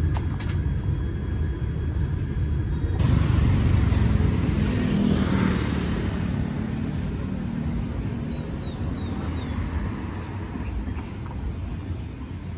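Low engine rumble inside an airliner cabin as it taxis. About three seconds in, this cuts to city street traffic: the rumble of road vehicles close by, swelling briefly and then easing off.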